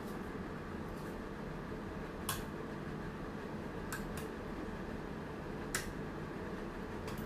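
Steady background hum with a handful of short, sharp light clicks and taps from the paper sheet and cake board being handled around the base of a frosted cake on a turntable.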